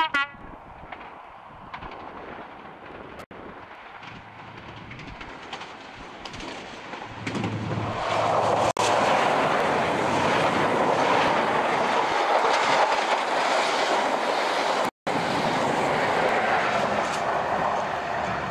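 InterCity 125 high-speed train passing at speed: the diesel power car and the coach wheels on the rails grow louder from about seven seconds in, and are loudest as the coaches go by. There is a brief loud blip right at the start, and the sound cuts out for an instant a few times.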